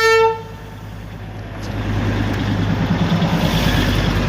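Darjeeling Himalayan Railway toy train's horn, one steady pitched blast that cuts off about half a second in, followed by a low vehicle rumble that grows louder over the next few seconds.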